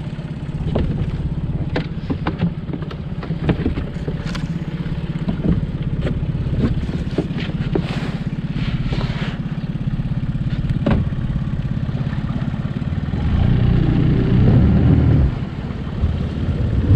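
Boat engine idling steadily, with scattered knocks and thumps from people stepping aboard the boat; the engine gets louder near the end as it is given throttle.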